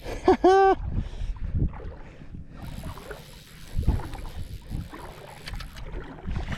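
Wind buffeting the microphone and water sloshing around a wader on shallow saltwater flats, with low irregular thumps. Two short pitched calls, each rising then falling, come about half a second in.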